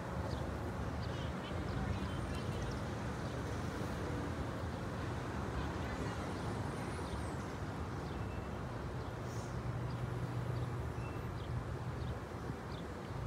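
Outdoor background noise through the microphone during a silent pause: a steady low rumble with a few faint, short bird chirps.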